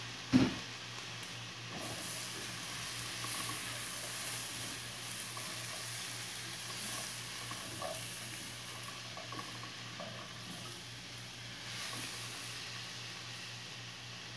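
Green beans, onion and chillies sizzling in hot oil in a pot while a spatula stirs and tosses them, with small scattered clicks and scrapes. A sharp knock about half a second in.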